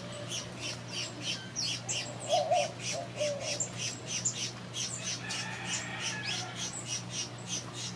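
Aviary birds calling constantly, with short high chirps at about three or four a second and a lower squawk about two and a half seconds in.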